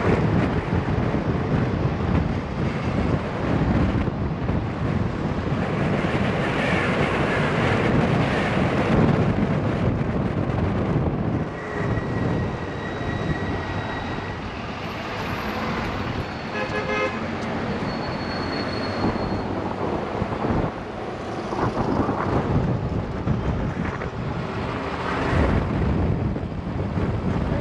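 Wind buffeting the microphone and road traffic noise while riding an e-bike in city traffic, with a few short high tones near the middle.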